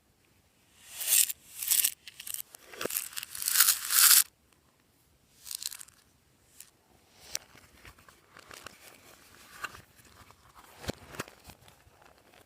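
Crinkly material being torn and crumpled by hand: a run of loud, hissy rips between about one and four seconds in, then softer scattered crackles.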